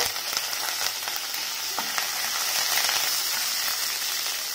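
Fresh curry leaves and chopped green chilli sizzling and crackling in hot oil with fennel and cumin seeds in a kadai, stirred with a wooden spatula: a steady hiss with fine crackles as the leaves' moisture fries off.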